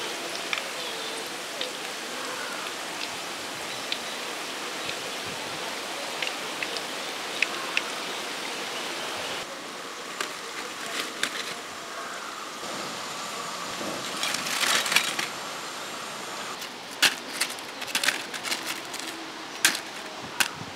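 Hot oil sizzling steadily as prawn vadas deep-fry in a wide pan, with a few small crackles and clicks. About halfway the sizzle gives way to a thinner background hiss with scattered rustles and clicks.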